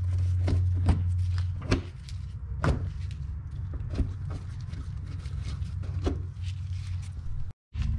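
Scattered plastic clicks and knocks as the push-type trim clips holding the car's wheel-well liner to the front bumper are worked loose and handled by a gloved hand, over a low steady hum that is loudest for the first couple of seconds.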